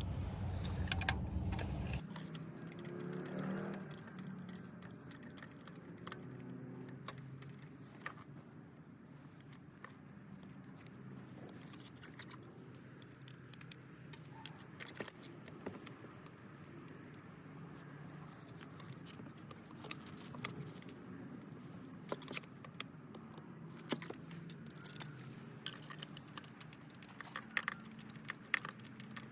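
Scattered light metallic clicks and clinks of a spark plug socket and extension being handled while new spark plugs are put into the engine, coming more often near the end.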